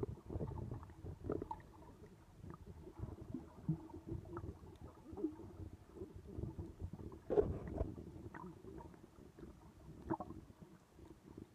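Muffled underwater rumble and gurgling of moving water picked up by a submerged camera, with scattered faint clicks and a louder knock about seven seconds in.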